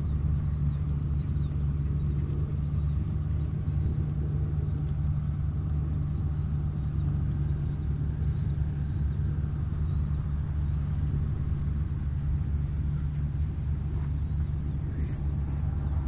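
Tractor engine running steadily as a low, even drone, with an insect's continuous high trill and faint scattered chirps over it.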